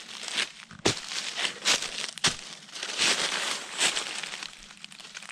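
Dry leaves and brush crunching and rustling in irregular bursts, with a few sharp snaps like twigs breaking.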